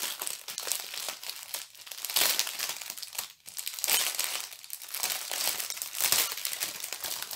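Plastic packaging crinkling in irregular bursts as small bags of diamond-painting drills are handled, with a short pause about halfway through.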